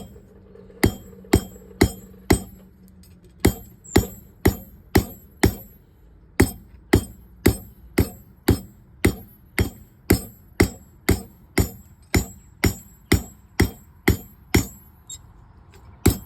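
Hand hammer striking hot quarter-inch square steel bar on an anvil, rounding the stock, at a steady pace of about two ringing blows a second. The blows pause briefly near the end.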